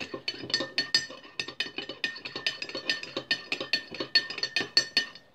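A spoon stirring PVA glue in a container for slime, clinking quickly and repeatedly against its side, about four or five ringing clinks a second. The clinking stops just before the end.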